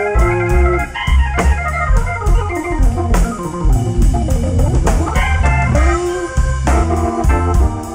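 Hammond organ playing quick runs of notes in a live jazz-blues band, with drums keeping a steady beat and a low bass line underneath.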